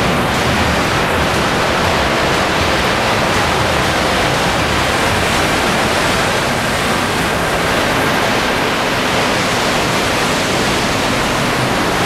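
Loud, steady rush of a mountain waterfall and the stream running below it.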